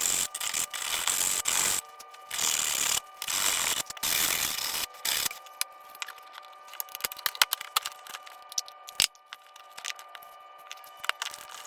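Wooden bandsaw box being sanded by hand in several strokes of about a second each, then light clicks and taps as the piece is handled, over a faint steady hum.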